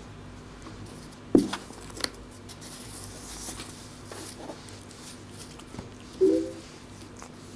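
Siamese cat rolling and rubbing on a towel against a cardboard box: soft rustling and scuffing, with a sharp thump about a second and a half in and a smaller click soon after. Near the end comes a short pitched squeak.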